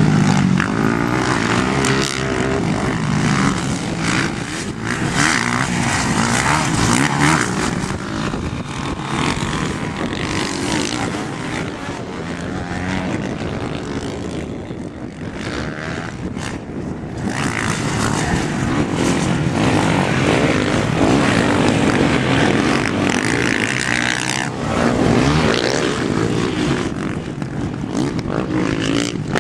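Dirt bike engine running under riding load, revving up and easing off again and again.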